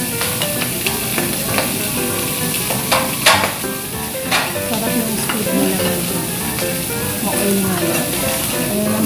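Food sizzling on a teppanyaki griddle, a steady hiss, with a few sharp clicks about three to four and a half seconds in.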